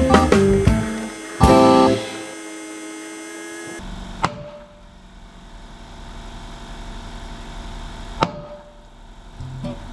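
Guitar background music for about the first two seconds, then a steady low electrical hum with two sharp clicks, about four seconds apart.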